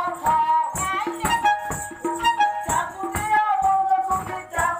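Sambalpuri folk dance music: a large drum is beaten in a quick, even rhythm under a melody that bends in pitch, with jingling, rattle-like percussion.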